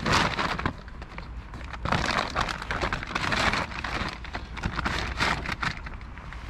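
Irregular rustling and crinkling from hands working close to the microphone, handling the tarp door and its fastening, in uneven surges with no steady tone.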